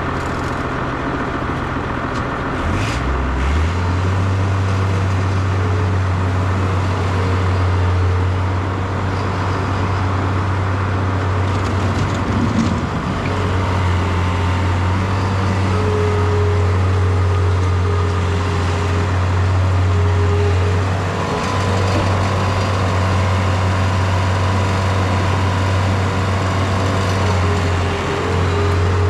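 John Deere 675B skid steer's engine running, stepping up to a higher, steady throttle about four seconds in, with brief dips in engine speed twice in the last third.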